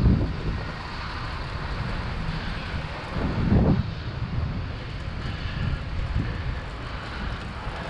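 Wind rumbling on a GoPro's microphone as a fixed-gear bicycle rides along at speed, with a stronger gust about three and a half seconds in.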